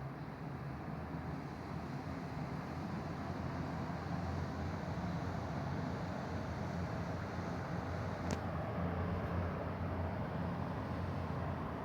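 Britânia turbo pedestal fan running, a steady whirring rush of air with a low hum. It grows a little louder over the first few seconds, and there is one short tick about eight seconds in.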